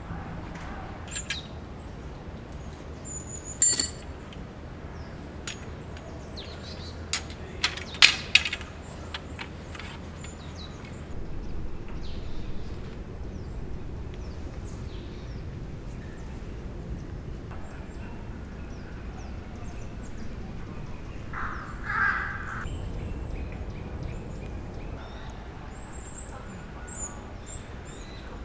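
Steady outdoor background hiss with a few sharp clicks and knocks, a quick cluster of them about eight seconds in, and faint short high bird chirps near the end.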